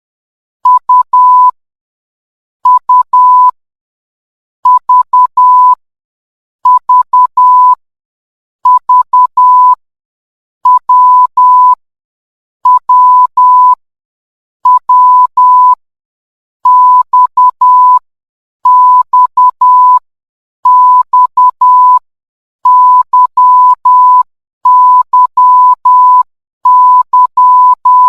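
Morse code played as a single steady beep tone keyed into short and long beeps, one letter's group of dots and dashes about every two seconds.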